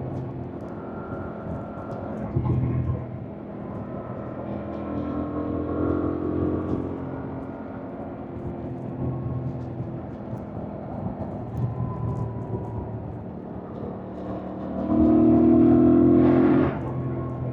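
2025 Yamaha MT-07's 689 cc parallel-twin engine running under way, its pitch rising and falling with the throttle. A short surge comes about two and a half seconds in. Near the end the bike accelerates hard and louder, then the note cuts off suddenly.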